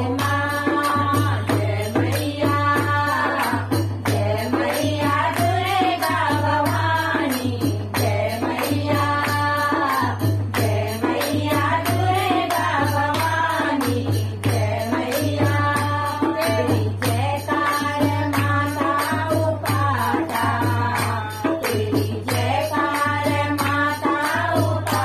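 A group of women sing a Pahari devotional bhajan together in short repeating phrases. Steady hand-clapping and a barrel drum keep the beat.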